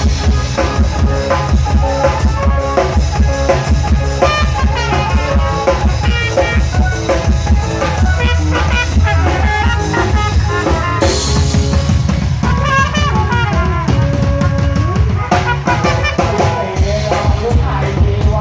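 Thai khrueang hae procession band playing upbeat music, a drum kit with bass drum and snare keeping a steady beat under a stepping lead melody.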